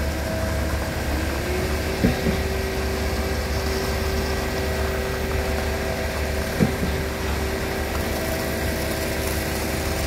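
Concrete pump truck's engine running steadily, with a tone that rises a little over a second in and then holds. Two short knocks come about 2 and 6.5 seconds in.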